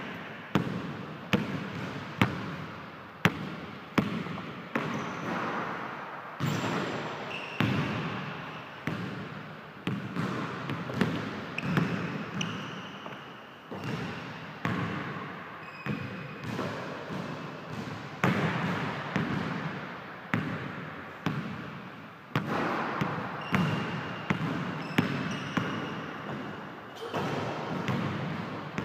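Basketball bouncing on a hardwood gym floor during dribbling and shooting, sharp bounces about once a second, each echoing in the large hall. A few short high squeaks of sneakers on the wood come in between.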